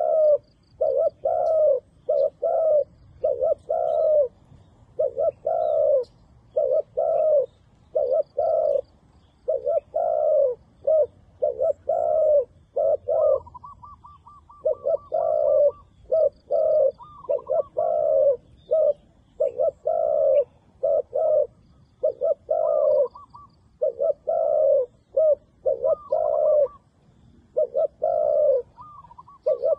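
Spotted dove cooing over and over in short phrases of low coos. About halfway through the coos stop briefly for a quick run of higher notes.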